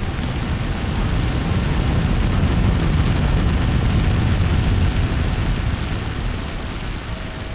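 Steady, dense rumbling noise with a thin high whine over it, swelling slightly in the middle and easing off near the end.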